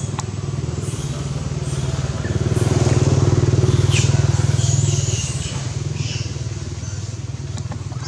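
An engine running with a low, evenly pulsing drone that grows louder about two and a half seconds in and eases off again after about five seconds.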